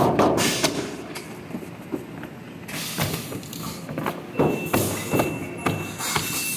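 Dates packing line running: the tray-wrapping machine and its conveyor clatter, with irregular thumps and clacks every half second or so over a steady mechanical hum and a thin high whine.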